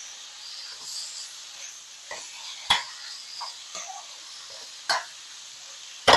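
Squid rings, onion and spices sizzling in a frying pan while a plastic spatula stirs them. The spatula scrapes and knocks against the pan a few times, loudest near the end.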